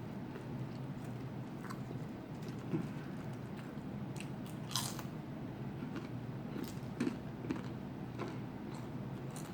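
A person biting and chewing food close to the microphone, with crisp crunches scattered throughout and a few sharper ones about three, five and seven seconds in.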